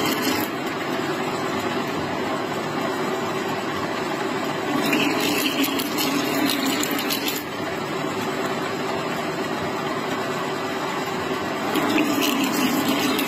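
Metal lathe running as a threading tool cuts a coarse thread into a steel shaft under coolant: a steady machine hum with cutting noise, louder near the start and end, and a brief higher scraping about five to seven seconds in.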